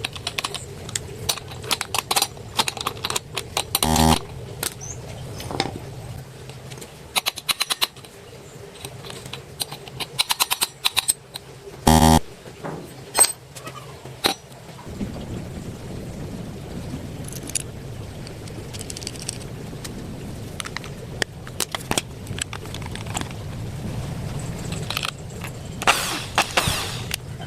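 A series of sharp clicks and knocks, with two brief, loud buzzing rattles about four and twelve seconds in, and a low steady hum in the second half.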